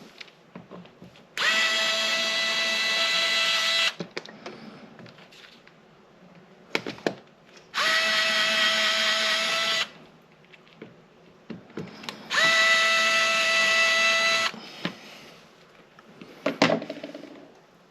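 Power drill run in three bursts of about two seconds each, spinning up quickly at each start and holding a steady whine. Small clicks and taps come between the bursts.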